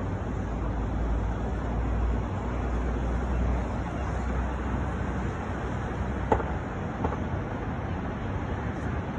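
Steady outdoor city traffic noise with a low rumble, and two short knocks less than a second apart about six seconds in.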